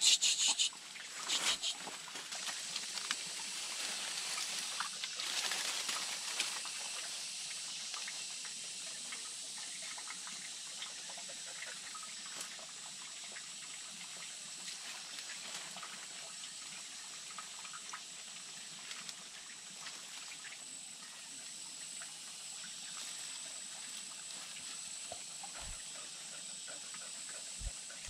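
Dry grass and leaves of a nest rustling and crackling as it is pulled apart by hand, loudest in the first two seconds. Then a steady soft hiss with a thin high whine.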